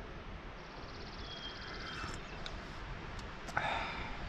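A person sipping coffee from a mug, with a short breathy exhale about three and a half seconds in, over quiet forest background with a faint high bird trill.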